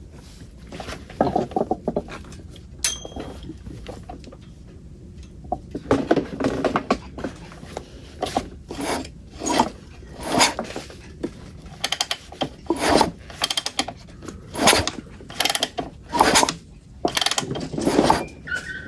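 Yamaha YZ400F four-stroke engine being turned over again and again on the kickstarter during a spark test, the kick gear ratcheting with each stroke. After a few scattered knocks, uneven strokes come about one to two a second from about six seconds in, and the engine does not fire.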